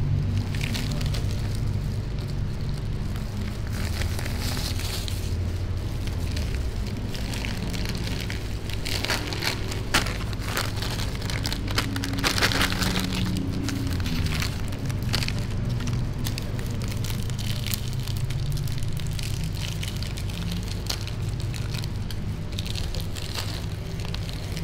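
Plastic candy packaging crinkling and crackling as it is handled and torn open with gloved hands, in many short sharp crackles that are densest about halfway through. A steady low hum runs underneath.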